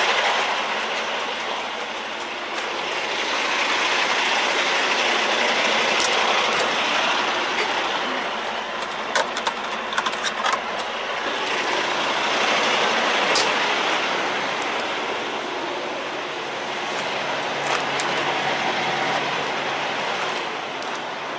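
Steady noise of an idling diesel semi-truck, swelling and fading slowly, with a handful of sharp clicks about nine to eleven seconds in.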